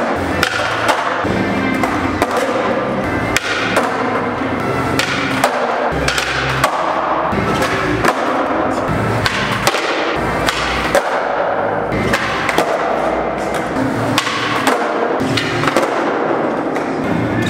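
Background music with a beat, mixed with the clacks of skateboards popping and landing on pavement.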